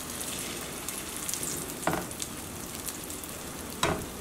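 Panko-breaded chicken cutlet sizzling in hot oil in a frying pan, a steady hissing fry. Two sharp knocks come about two seconds apart.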